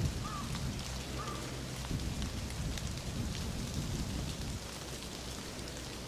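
Shallow creek water trickling and burbling around rocks: a steady rush with small scattered ticks of water, over a low rumble. Two short high chirps come about a second apart near the start.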